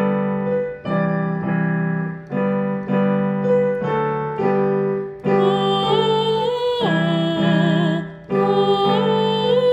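A song's keyboard accompaniment, electric piano chords struck in a steady rhythm; about halfway through a singer comes in on a long "Oh", held with vibrato.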